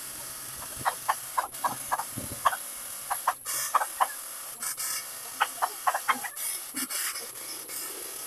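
Chickens clucking in many short, irregular notes, over a steady high hiss.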